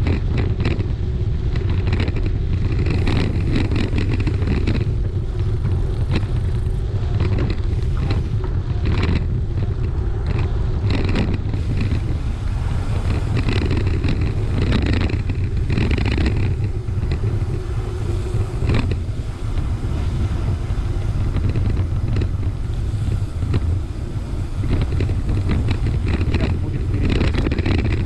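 Bicycle rattling and jolting over a rutted dirt track, with irregular knocks and clatters over a steady low rumble of wind on the action camera's microphone.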